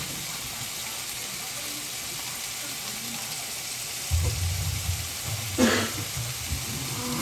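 Chicken and mushroom slices frying in a nonstick pan: a steady sizzling hiss. From about four seconds in come low bumps of the phone being handled, with one short sharp sound partway through.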